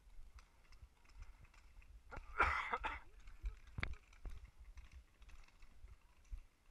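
Irregular light clicks and knocks from footsteps and carried gear while walking on grass, with a louder rustling burst a little over two seconds in.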